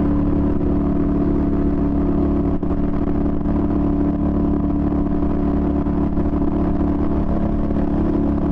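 1996 Yamaha Virago XV250's small air-cooled V-twin engine running at a steady pitch while the bike cruises, through a non-stock exhaust.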